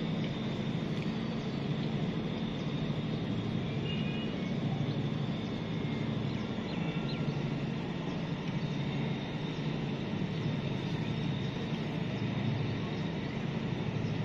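Steady low rumbling background noise, with a few faint, brief high chirps about four and seven seconds in.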